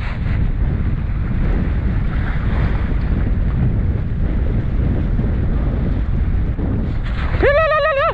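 Strong wind buffeting the microphone. Near the end a duck call starts: one note that rises quickly and then wavers.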